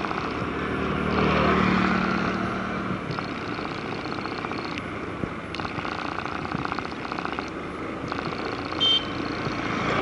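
Motorbike engine running steadily as it rides along a road, swelling briefly louder a second or two in. A short high beep sounds near the end.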